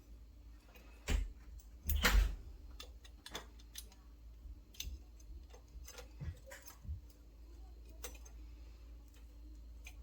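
Irregular light clicks and knocks of hand tools and small metal engine parts being handled, with two louder knocks about one and two seconds in.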